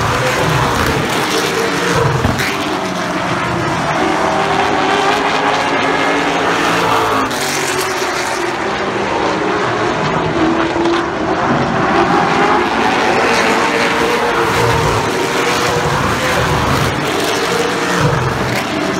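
Race car engines running on a short oval track, several at once. Their pitch rises and falls as the cars go by and round the turns.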